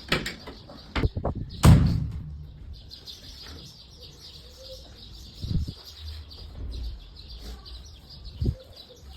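MDF kitchen cabinet doors being closed: a few sharp knocks, the loudest about two seconds in, then two softer thuds later. Birds chirp faintly behind.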